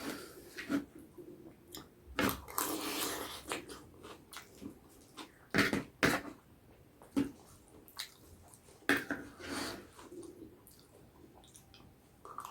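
A person eating with their hand close to the microphone: several sharp crunching bites, followed by wet chewing and slurping.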